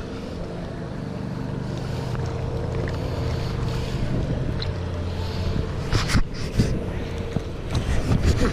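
Wind buffeting the camera microphone in a steady low rumble, with short bursts of water splashing about six seconds in and again near the end.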